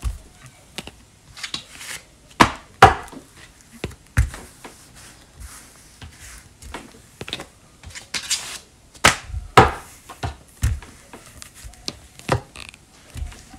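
Rolling pin working a sheet of air-dry foam clay on a cutting mat: irregular knocks and thumps as the pin is set down and pushed back and forth, loudest about two and a half seconds in and again around nine seconds in.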